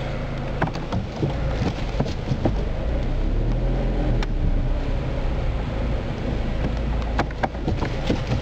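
A car driving slowly, heard from inside the cabin: a steady low engine and road hum with scattered light clicks and knocks.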